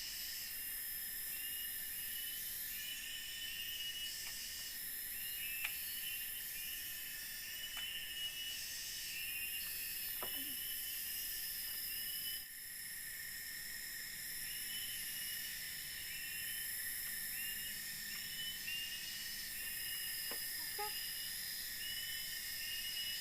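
Forest insect chorus: a steady high buzzing, with a short chirping call repeating over it every second or so and a few faint taps.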